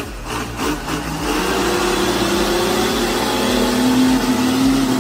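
Engine running steadily, getting louder about a second in and then holding an even pitch.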